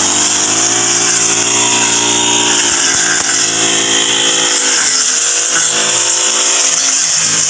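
Backpack petrol brush cutter running at high revs while its cutting head works through weeds and grass, loud, the engine note rising and dipping a few times as the throttle is worked.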